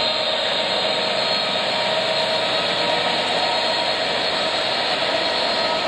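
Class 66 diesel locomotives with their EMD two-stroke V12 engines working under power: a loud, steady engine and turbocharger noise with a few even whining tones.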